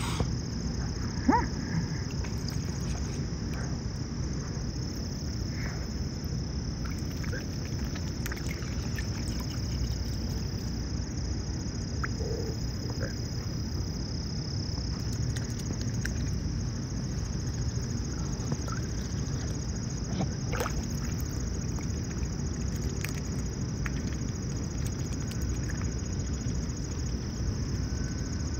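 Mute swans feeding at the water's surface: small splashes, drips and bill clicks as they dip their heads under, with one sharper tick about a second in. Behind them runs a steady high-pitched insect chorus and a low background rumble.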